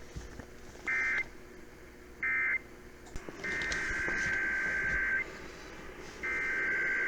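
Emergency Alert System SAME data bursts: two short buzzy digital bursts a little over a second apart, closing the previous test's end-of-message code, then two longer bursts of the next test's header, the second still running at the end.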